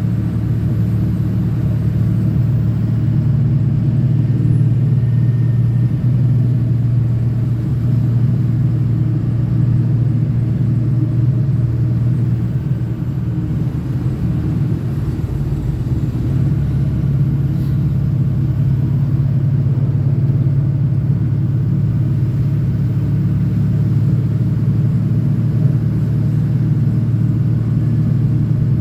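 Diesel pickup truck driving steadily, a continuous low engine and road rumble from the Ford 6.0L Power Stroke V8 turbodiesel, easing slightly about halfway through.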